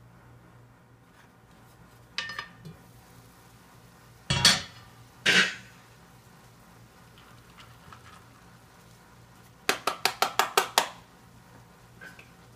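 Cookware clatter as rice is added to a cast iron skillet: a knock about two seconds in, two louder knocks a second apart around the middle, then a quick run of about seven taps against the pan near the end.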